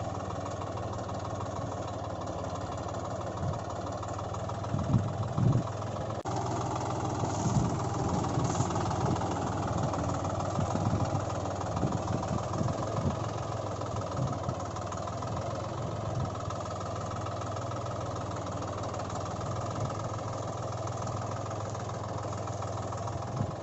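Tractor diesel engine idling steadily with a low chug, with a few louder knocks about five seconds in.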